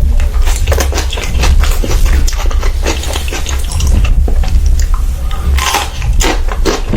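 Close-miked chewing and biting with wet, smacking mouth sounds: a run of irregular crackles and clicks over a steady low hum.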